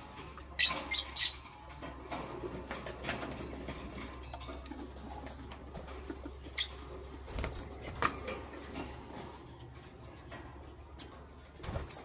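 Lovebirds giving a few short, sharp chirps, a cluster about a second in and two more near the end, over soft scratching and rustling as they move about; a low steady hum runs underneath.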